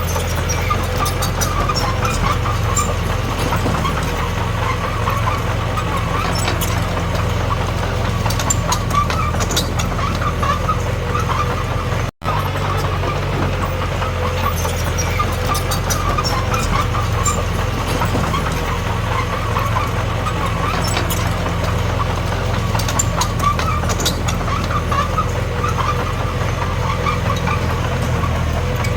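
Small crawler bulldozer's diesel engine running steadily while working, with scattered metallic clicks and clanks. The sound cuts out for a split second about twelve seconds in.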